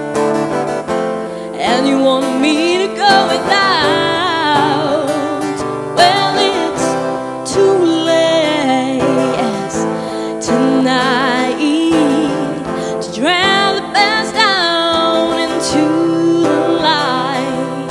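A woman singing a slow ballad live into a microphone, accompanied by acoustic guitar. Her long held notes waver with vibrato.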